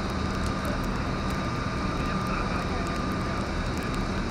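Steady low rumble of city traffic, with a faint engine hum running through it.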